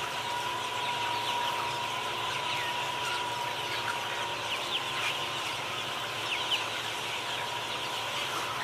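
A flock of white chickens in a poultry house calling: many short, high calls overlapping, some falling in pitch, over a steady background hum.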